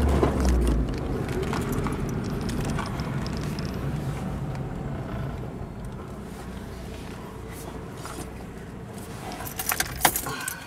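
Engine and road noise inside a moving car, a low rumble that eases off as the car slows. A cluster of sharp clicks and rattles near the end.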